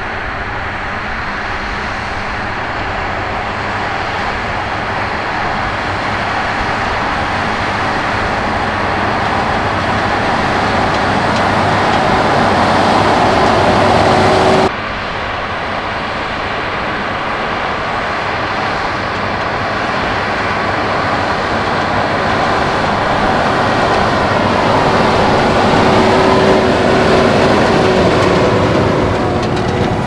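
John Deere 7R.330 tractor's six-cylinder diesel engine running steadily under load, pulling a Krone HDP2 large square baler that is baling straw. The sound grows louder as the machines approach, changes abruptly about halfway through, then builds again.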